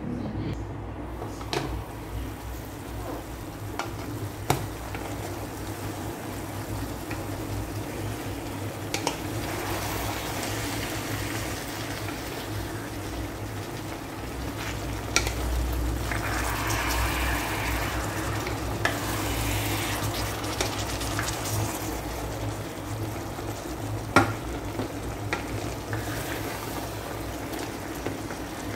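Wooden spatula stirring eggplant and chicken liver in a rice cooker's inner pot, with scraping and occasional sharp knocks against the pot, over the food sizzling as it cooks and a steady low hum.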